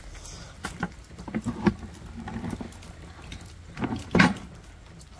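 Scattered crunches and knocks of footsteps shifting on wet gravel, with a louder cluster about four seconds in.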